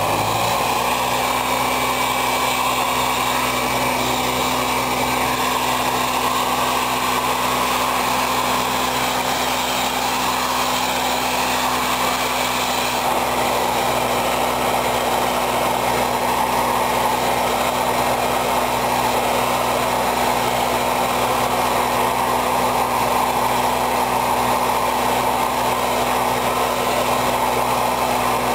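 Madpatcher jet-injection pothole patcher running steadily: its blower forces a constant rush of air, bitumen emulsion and crushed stone through the hand-held hose into a pothole, over a steady engine hum.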